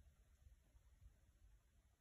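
Near silence: faint low room tone.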